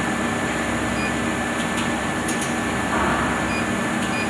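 Steady machinery hum from an extrusion blow molding machine running, with several short high beeps from its touchscreen keypad as timer values are keyed in.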